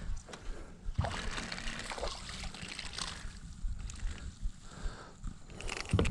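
A small hooked tigerfish splashing at the surface of the water in several short bursts as it is reeled in to the bank.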